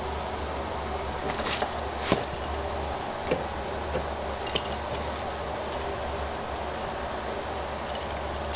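Light metallic clinks and clicks as a steel plane blade and its chrome cap are handled and set against each other on a wooden jig. The clicks come at irregular intervals, the sharpest about two seconds in.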